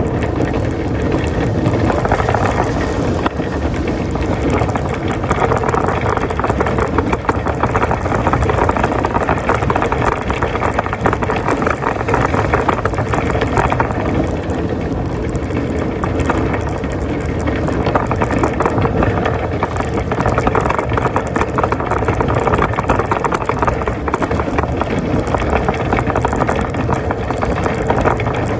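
Shopping cart being pushed over pavement: a steady rumble and rattle of its wheels.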